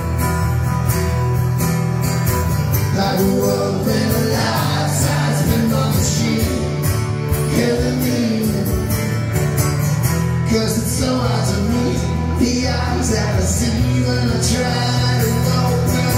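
Live rock band playing through a PA, with strummed acoustic guitars over a steady beat and a man singing lead.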